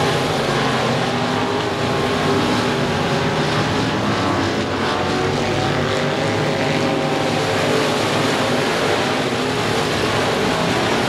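Several dirt-track race car engines running hard around the oval, their pitches rising and falling as the cars go down the straight and through the turns.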